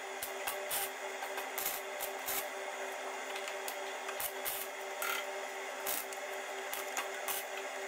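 Ratchet wrench clicking in irregular bursts of a few clicks a second as a socket works a rusted nut off the rear leaf spring mounting of a Mitsubishi L200, over a steady low hum.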